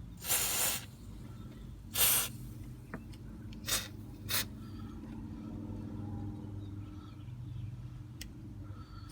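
Aerosol can of white lithium grease sprayed onto car door hinge pivot points in four short hissing bursts. The first two are longer and the last two are quick puffs.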